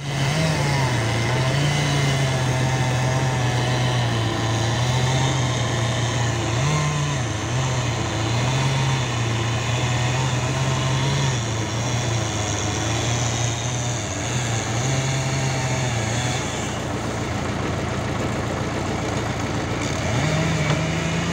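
Stihl MS 661 two-stroke chainsaw cutting into a poplar trunk at high revs, its engine pitch sagging as the chain bites and picking up again as it frees. The engine eases off about three-quarters of the way in and revs up again near the end.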